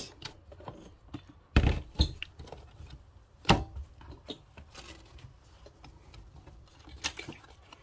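Latches of a black plastic Glock pistol case snapping open: two sharp clicks about a second and a half to two seconds in, and another knock a second and a half later as the case is opened. Then light handling and rustling of the papers and plastic bags inside, with one more click near the end.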